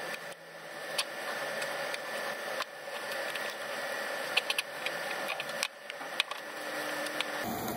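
Light clicks and taps of a gloved hand working among plastic and metal engine-bay parts, brushing against a rubber intake duct, over a steady hiss; a quick cluster of clicks comes about four and a half seconds in.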